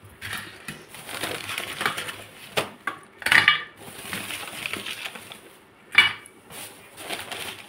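Kitchen handling sounds: crinkling and rustling with scattered clinks and knocks of dishes, a louder crinkly burst about three seconds in and a sharp knock about six seconds in.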